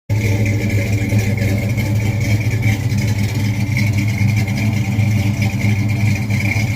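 Car engine running steadily and loud, a deep even drone with no change in pitch.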